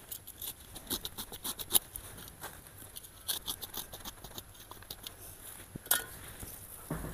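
A small metal hand tool scraping and digging into loose soil mixed with compost and dry leaves: a run of irregular short scratches and crunches, with a louder scrape a little before two seconds in and another near six seconds.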